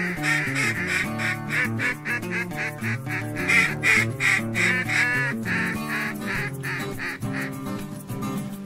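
Rapid runs of duck quacking, several quacks a second, over background music; the quacking thins out in the second half.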